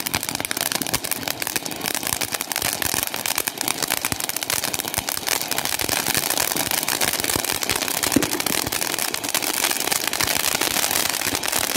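Ground firework spewing a jet of sparks with dense, continuous crackling that keeps an even level throughout.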